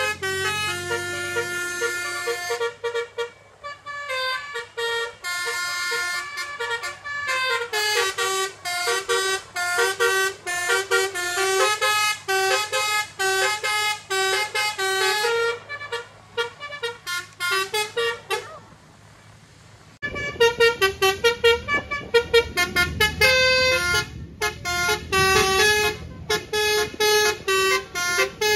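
Telolet basuri musical horn playing a fast tune, note after note in quick steps up and down. It breaks off briefly near two-thirds of the way, then the tune starts again over a low rumble of traffic.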